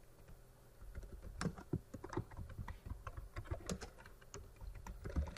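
Computer keyboard being typed on: a quick, irregular run of key clicks starting about a second in.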